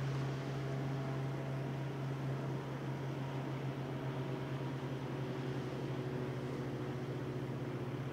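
Large marine diesel, the tugboat's Caterpillar D398 engine, running under load while pushing a barge. It makes a steady low drone with a fast, even throb.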